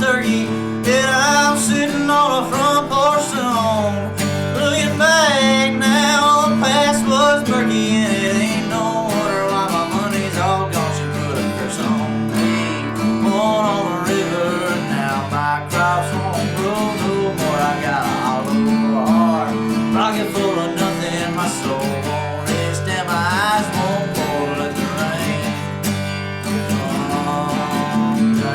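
Acoustic guitar strumming steady chords, with a melody line above that bends and wavers in pitch.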